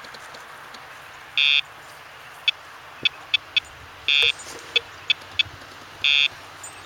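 Electronic beeps from a remote dog-training collar's handheld transmitter as its buttons are tapped: three longer beeps about a fifth of a second each, roughly two and a half seconds apart, with quick short beeps in between.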